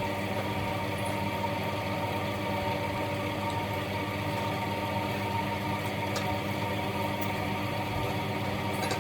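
A steady mechanical hum with a set of even tones, unchanging throughout, with a few faint clicks in the second half.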